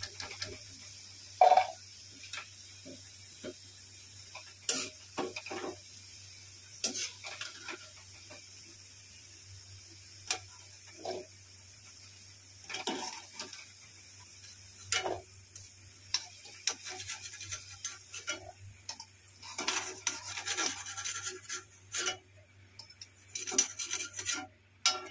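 Metal ladle scraping and clinking against an iron kadhai as fried jackfruit pieces are scooped out of hot oil: scattered short scrapes and taps, over a faint sizzle of the oil.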